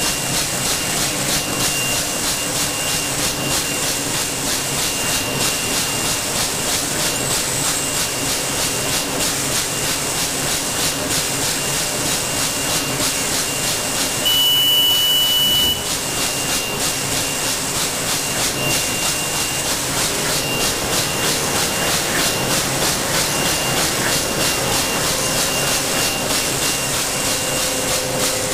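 CT-9914 left-handed plastic-bag wicketer running at production speed: a steady fast mechanical clatter with hiss from its spinning stacking arms and bag-feeding mechanism. About halfway through, a high steady beep sounds for about a second and a half.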